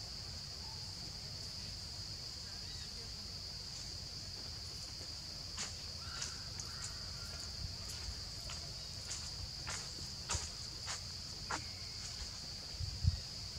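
Forest insects droning, one steady high-pitched tone throughout. From about halfway through, scattered sharp clicks and snaps, and a low thump near the end.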